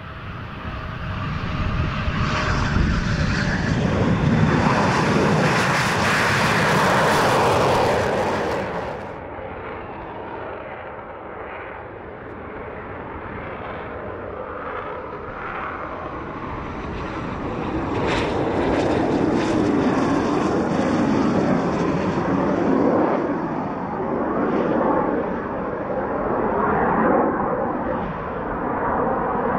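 Eurofighter Typhoon jet engines roaring during a low pass over the runway, growing louder over the first few seconds. The sound cuts off abruptly about nine seconds in, then a landing Typhoon's engines rumble more quietly and swell louder again over the second half as it rolls out on the runway.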